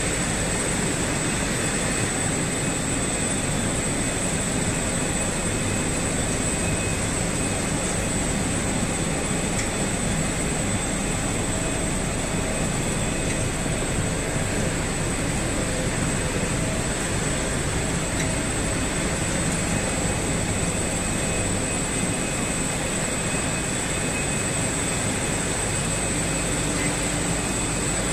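Steady din of mineral-separating plant machinery running, its motors, feeders and separators blending into one even mechanical noise, with a constant high-pitched whine over it.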